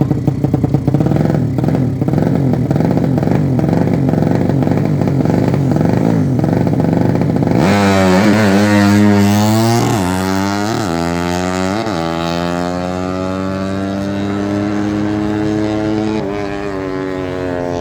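Motorcycle with a freshly built engine running at low revs, then about eight seconds in accelerating hard through the gears: the pitch climbs and drops sharply with each quick shift. It then makes a long, steady climb in a higher gear, drops briefly near the end, and climbs again.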